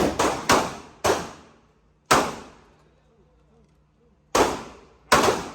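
Gunshots at a shooting range: about six shots at uneven spacing, each with a short ringing tail. A quick run comes in the first second, a single shot follows about two seconds in, and two more come after four seconds.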